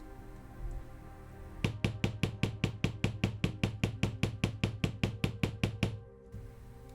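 A small hammer tapping quickly and evenly, about five taps a second for roughly four seconds, then stopping, over soft background music.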